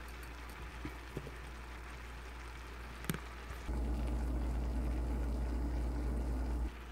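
A pot of drained boiled potatoes steaming dry on the stove: a faint steady hiss with a few light clicks. About three and a half seconds in, a steady low hum comes in, runs for about three seconds, then stops suddenly.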